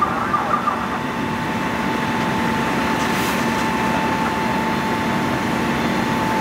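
Fire apparatus diesel engine running steadily to power the aerial water streams, with a constant whining tone over a low rumble.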